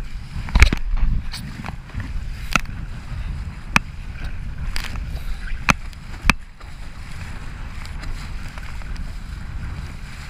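Wind buffeting the microphone in a steady low rumble, with several sharp knocks and clicks at irregular intervals in the first seven seconds.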